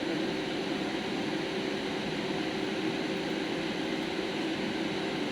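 A steady machine noise: a constant low hum under an even hiss, with no change through the stretch.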